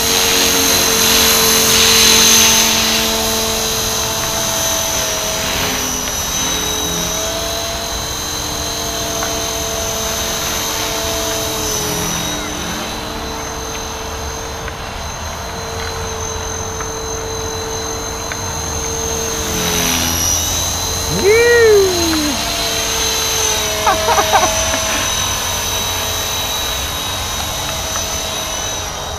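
Electric Blade 450 3D RC helicopter flying: a steady whine from its brushless motor and rotor, its pitch stepping up and down as the machine manoeuvres. About two thirds of the way through, a short sound sweeps up and then down in pitch, followed a few seconds later by a few short chirps.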